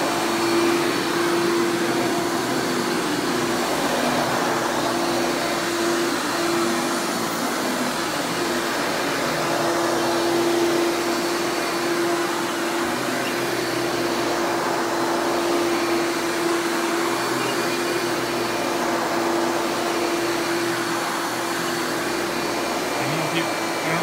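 Hoover Legacy WidePath upright vacuum cleaner, a direct-air design, running steadily while it is pushed back and forth over carpet: a constant motor whine over a broad even rush of air and beater brush.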